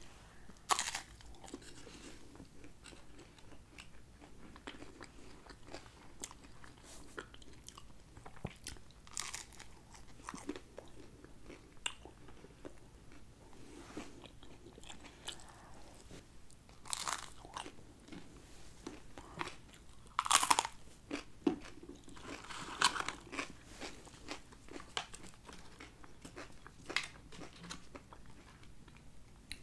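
Close-miked eating of McDonald's chicken nuggets: scattered bites, crunches and wet chewing sounds, with a few louder crunches.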